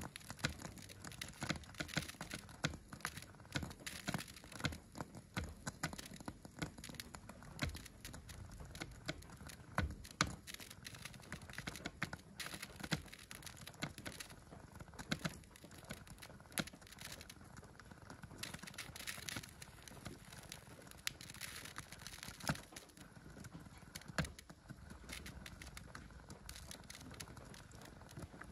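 An egg sizzling and crackling in a frying pan under a heated Moai figure, with a steady hiss and frequent irregular sharp pops.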